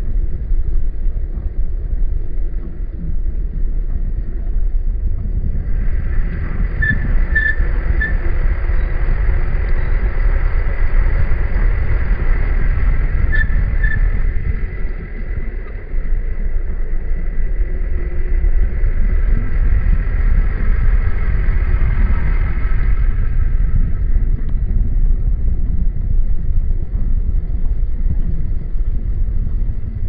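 Jeep Wrangler driving along slowly, heard from a camera on the hood: a steady low rumble of wind on the microphone, engine and tyres. From about six seconds in, a fainter higher hiss with a few short chirps comes in, then fades out again a few seconds past the twenty-second mark.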